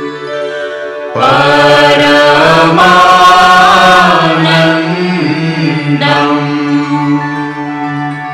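Devotional chanting: a sung voice over a steady drone, the voice coming in about a second in and carrying on in long phrases.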